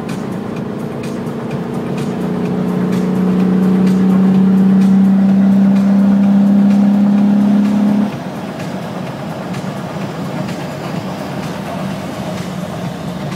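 Golf VR6 Syncro's six-cylinder VR6 engine under load at about 4000 rpm at Autobahn speed, a steady drone that swells over the first few seconds. It drops off suddenly about eight seconds in as the throttle is lifted, leaving wind and tyre noise.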